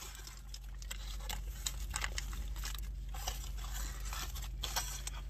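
Foil sandwich wrapper crinkling and crackling as it is unwrapped by hand, an irregular run of sharp crackles.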